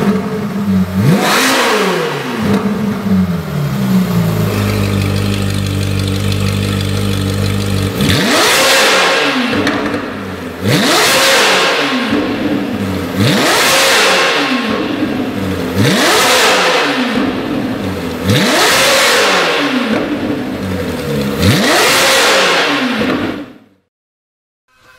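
Ferrari 458 Speciale's 4.5-litre V8 with a valved Fi (Frequency Intelligent) aftermarket exhaust, revved while standing still: two quick blips, a few seconds of idle, then six sharp rev blips about every two and a half seconds. The exhaust valves are closed at first and open for the later blips; the sound cuts off abruptly near the end.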